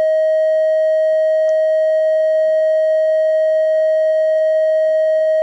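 Emergency Alert System attention tone from a mock alert broadcast: one loud electronic tone held steady at a single pitch.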